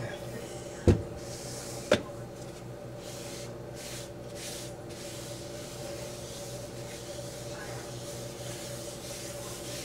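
Two sharp knocks about a second apart, from a metal espresso tamper and its tamping mat being set down on a countertop. A cloth then rubs across the counter in uneven strokes, over a steady low hum.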